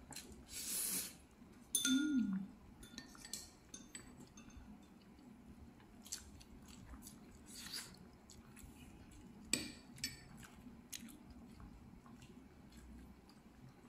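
People eating army stew at the table: chewing and mouth noises, with scattered light clicks of spoons and chopsticks against bowls and the pan. A brief low falling hum comes about two seconds in.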